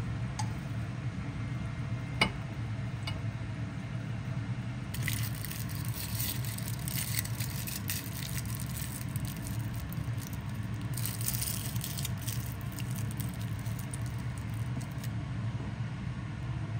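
Aluminium foil crinkling as it is squeezed by hand around the bone ends of chicken drumsticks, a dense crackling from about five seconds in to near the end, with a short break in the middle. A single click comes about two seconds in, over a steady low hum.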